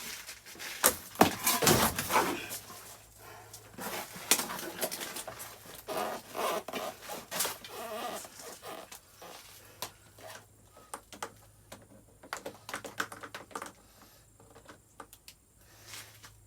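Irregular clicks, knocks and short scrapes of hands handling parts on the motorcycle's fuel system, loudest in the first two seconds and thinning out toward the end, over a faint steady hum.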